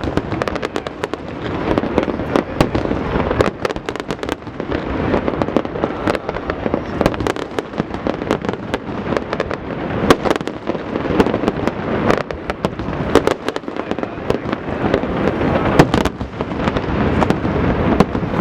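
Fireworks display: a dense, continuous barrage of bangs and crackling shell bursts, with many sharp cracks close together.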